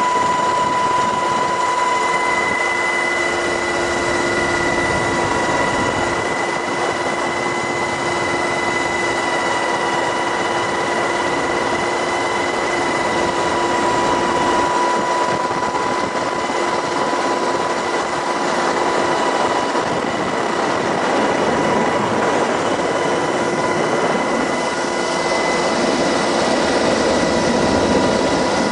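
MH-60S Knighthawk helicopter running: a loud, steady noise with several steady whining tones over it, unchanging throughout.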